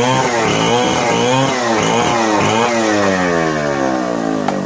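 Two-stroke chainsaw ripping a narra log lengthwise into boards, its engine speed rising and falling several times under the load of the cut. Near the end the pitch falls steadily as the saw slows, with a single click.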